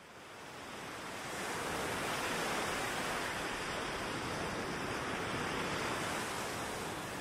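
Ocean surf washing onto a beach, fading in over the first second or two and then holding as a steady rush.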